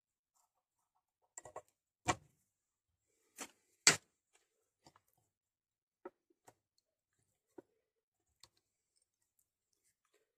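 Scattered small clicks and taps from handling fly-tying tools and materials at the bench. A cluster comes in the first four seconds, the sharpest tap about four seconds in, then a few faint ticks spaced out over the rest.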